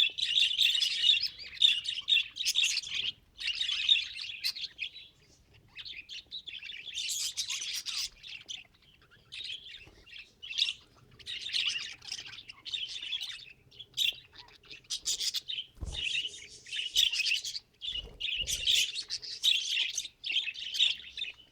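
Budgerigars chattering and warbling in bouts of a second or two, with short pauses between; a few dull low thumps near the end.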